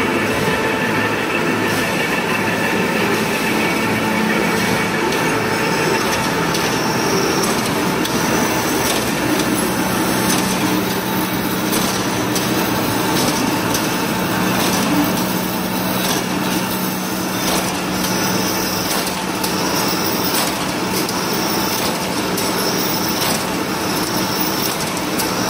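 Cold-rolling ribbed wire drawing and straightening-cutting line running: steel wire being rolled into 4.8 mm ribbed wire and fed through the straightener, a steady, loud mechanical clatter and hum. A low hum comes in about ten seconds in.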